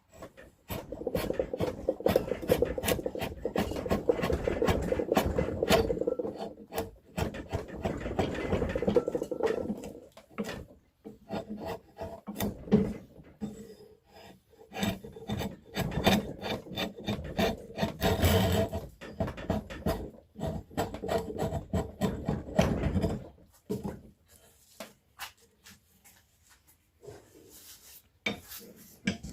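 Beech wood being shaped with a rasp: rapid, repeated scraping strokes in two long runs, thinning to a few scattered strokes for the last several seconds.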